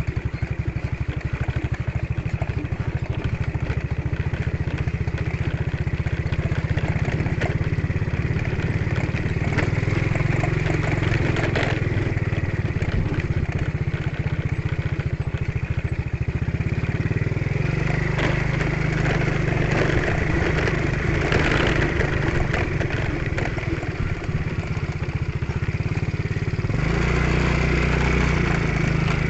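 Motorcycle engine running steadily while riding a rough road, with scattered knocks and rattles; the engine note shifts about two-thirds of the way through and again near the end.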